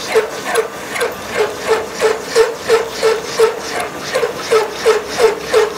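A lathe tool cuts into the centre of a spinning steel axle part, making a rhythmic scraping cut about three times a second, each stroke with a short ringing tone.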